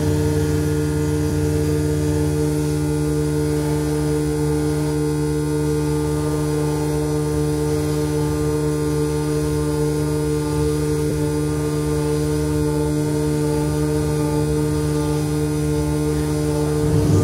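Modular synthesizer drone: several steady low tones held together, with higher tones wavering slowly up and down above them. The sound shifts briefly near the end.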